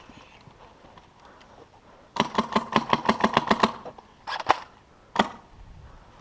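Airsoft gun firing at close range: a rapid full-auto burst of about a dozen shots lasting about a second and a half, then a short burst of two or three shots and one single shot a little later.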